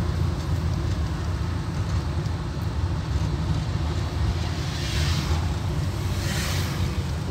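Car engine and road noise heard from inside the moving car's cabin: a steady low rumble, with two brief swells of hiss about five and six and a half seconds in.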